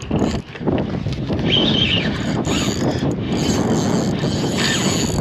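Fishing reel being cranked against a hooked white sturgeon, its gears and drag making a dense, rapid mechanical clicking, with a brief high whine about one and a half seconds in.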